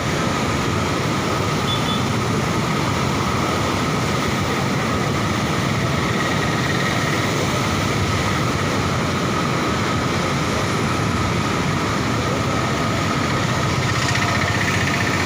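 Floodwater of the Krishna River rushing through the open gates of Prakasam Barrage: a steady, unbroken rushing noise at an even level.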